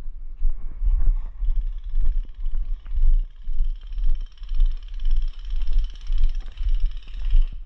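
Footsteps of a player walking at a steady pace, about two thumps a second, as heard by a body-worn camera, with gear and clothing knocking along. A steady hiss joins about a second and a half in.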